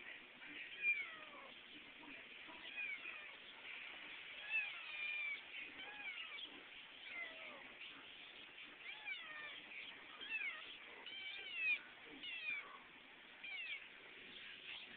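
A kitten meowing over and over in many short, high-pitched cries, most of them falling in pitch. The owner takes this for a bid for contact rather than hunger, since it has just been fed.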